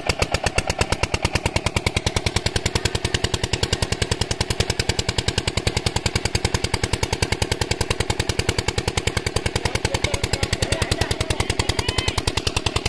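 Single-cylinder diesel pump-set engine, about 8 hp, running steadily just after being started, with an even, rapid knock of about seven firing beats a second as it drives the water pump.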